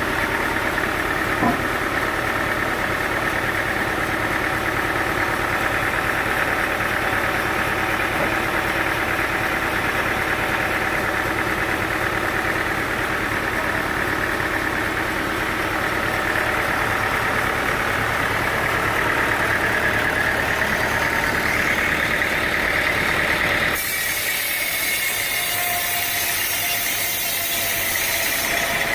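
Sawmill machinery running steadily with a constant engine-like drone. About 24 seconds in, the sound changes abruptly: the low rumble drops away and a brighter hiss takes over.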